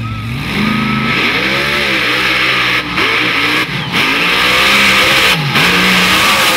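2000 hp supercharged (blower) engine of a tractor-tyred mud-bog Jeep at full throttle, revving in repeated surges, its pitch climbing and falling several times as the Jeep launches and runs through the mud.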